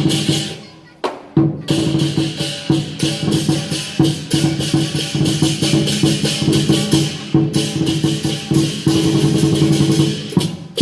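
Lion dance percussion: the big drum, cymbals and gong played together in a fast, dense beat, breaking off briefly about a second in before starting again.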